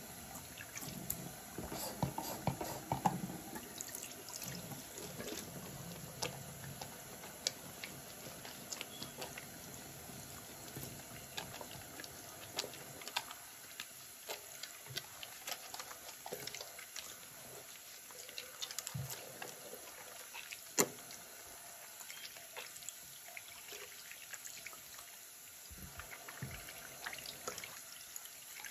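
Bathroom sink faucet running a thin steady stream into the basin drain while hands are soaped and rinsed under it, with small splashes and clicks throughout and one sharper click about two-thirds of the way in.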